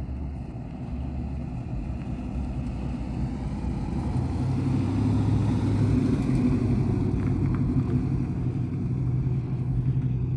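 A car engine running as the car drives close by and moves off, with a steady low sound that grows louder about halfway through.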